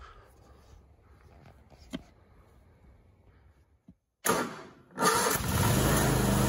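A 22-horsepower riding lawnmower engine starting up: a short loud burst as it cranks, then about five seconds in it catches and runs steadily. Before it, only faint outdoor background with a single tick about two seconds in.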